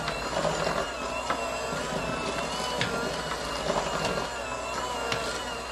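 Electric hand mixer running steadily, its beaters working flour into creamed butter, sugar and eggs in a stainless steel bowl, a slightly wavering motor whine with a few sharp clicks.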